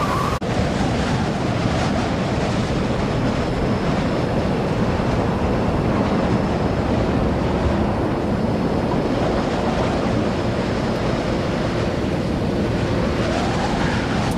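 Steady rush of running water washing mud off a plastic toy robot.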